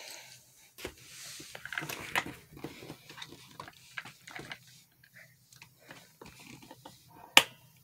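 Small clicks and scrapes of hands working plastic parts and screws on a gaming chair, then one sharp, loud plastic click near the end as a part snaps into place.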